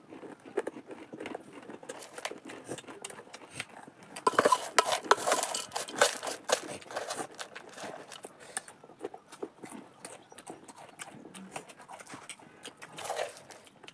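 Eating sounds: spoons clicking and scraping against a steel bowl while crunchy puffed-rice jhalmuri is chewed, with a cluster of louder clicks between about four and six and a half seconds in.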